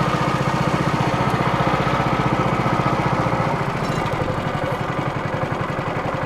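Boat outboard motor running steadily with an even pulsing note, easing slightly about four seconds in.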